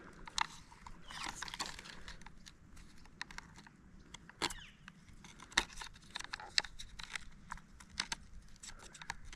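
Irregular small clicks, ticks and scrapes of hard plastic parts being handled: a door lock actuator and its cable clips being worked with a metal pick tool.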